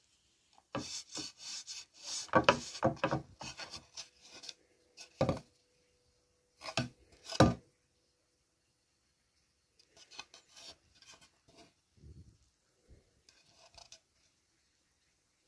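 A painted board being handled and rubbed: bursts of scraping and rubbing noise over the first seven seconds or so, then fainter, sparser rubbing near the end.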